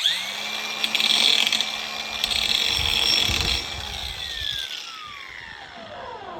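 A power tool, most likely an angle grinder, spins up at once and sharpens a steel bushhog cutter blade: a high, gritty grinding noise over a steady motor whine. About four seconds in the trigger is let go and the whine falls in pitch as the tool winds down.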